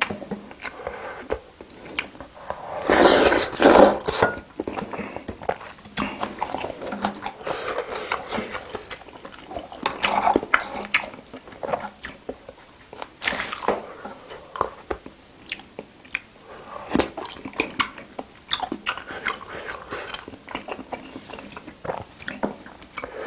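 Close-miked eating of spicy seafood boil: a person biting and chewing with short wet clicks and smacks throughout. Louder noisy bursts come about three to four seconds in and again about thirteen seconds in.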